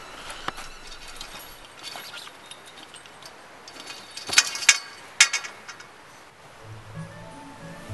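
Chain-link fence rattling and clinking in a few sharp metallic bursts as someone climbs over it, loudest a little past the middle.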